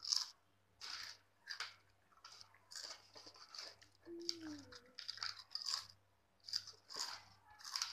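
A person chewing a mouthful of crisp Bingo Yumitos red chilli potato chips, with a run of irregular crunches several times a second.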